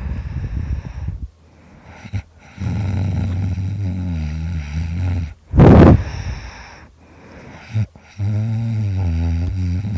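Loud snoring: a rough rattling breath, then two long low buzzing snores, with a short, louder snort between them about six seconds in.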